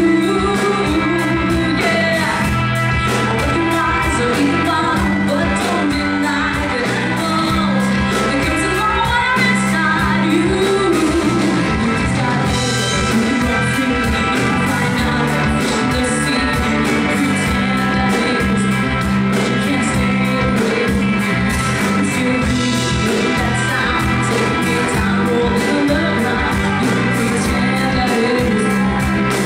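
A woman singing live into a microphone over a rock band, with an electric bass guitar and a drum kit keeping a steady beat.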